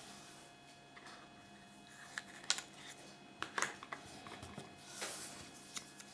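Small plastic toys being handled on a tabletop: a few light clicks and taps, and a short rustle about five seconds in, over a faint steady hum.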